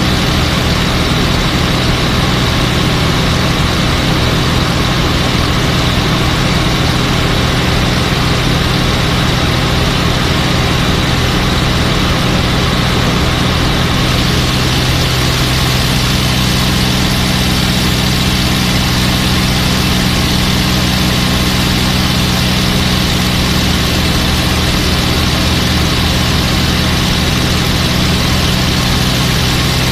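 P-51 Mustang's V-12 piston engine running steadily at cruise power, heard from inside the cockpit with a steady low hum and airflow rush over it.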